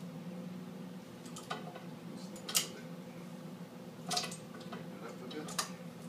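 Steel wrench clinking against a hot iron railing bar clamped in a vise as it is fitted and turned to untwist the bar: several sharp metal clicks, the loudest about two and a half seconds in, over a steady low hum.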